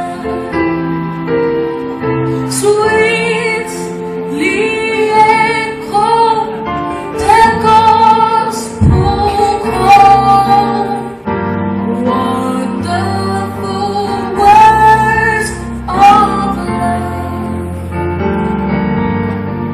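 A song: a high voice sings a melody in long held notes over sustained instrumental chords.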